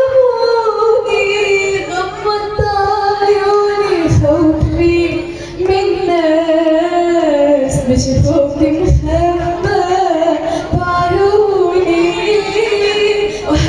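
A woman singing an Arabic song, drawing out long held notes that slide up and down in pitch, with no clear words.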